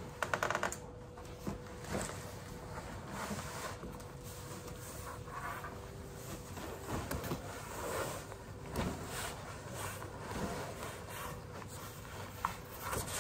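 Scattered rustling, scraping and light knocks of cardboard packaging being handled and turned over.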